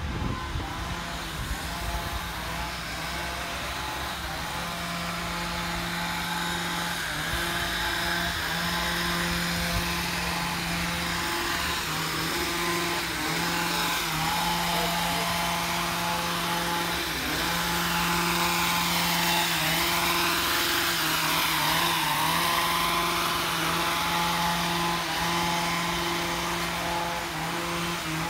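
A small motor running steadily with a constant hum, getting somewhat louder toward the middle and then easing off.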